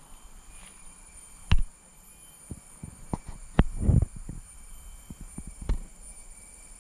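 Footsteps through forest undergrowth and leaf litter: irregular thumps and cracks, the loudest about one and a half and four seconds in, over a faint steady high whine.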